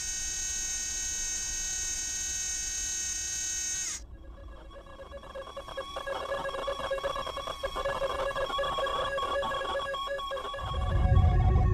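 Synthesized sound effects: a steady, high electronic tone that cuts off abruptly about four seconds in, followed by a whirring, clicking mechanical texture with several steady tones. A deep rumble comes in near the end.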